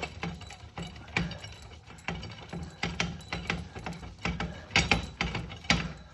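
Metal tools and parts clicking and clanking in irregular bunches of sharp knocks, as the axle puller and axle parts are handled.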